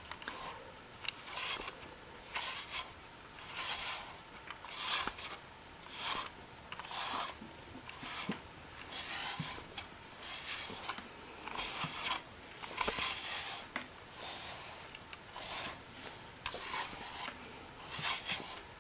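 A pet brush drawn through a cat's fur in repeated strokes, about one a second, each a short scratchy swish.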